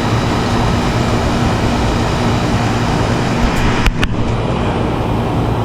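Steady running noise of an air-conditioning condenser, a constant hum with fan rush, broken by two sharp clicks about four seconds in.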